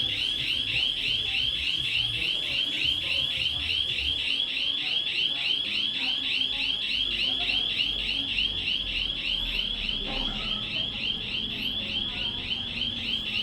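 Panic alarm sounding continuously after being set off: a high, warbling electronic tone that repeats about five times a second without a break.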